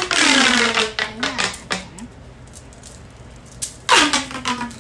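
Plastic pop tubes being stretched, giving a ratcheting zip that falls in pitch, once at the start and again about four seconds in, with a few sharp plastic clicks in between.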